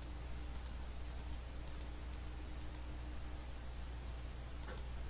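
Light clicks from a computer at the desk, mostly coming in quick pairs, about two pairs a second for the first three seconds, then a pause and one more pair near the end. A faint steady low hum runs underneath.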